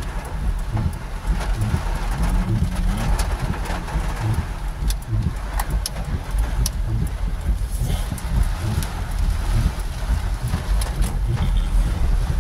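Car driving through heavy rain on a flooded road, heard inside the cabin: an uneven low rumble of the car and its tyres on the wet surface, with scattered sharp taps of rain on the windscreen.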